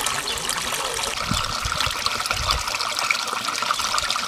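Steady rushing, trickling noise of running water, with a few low bumps underneath between about one and a half and two and a half seconds in.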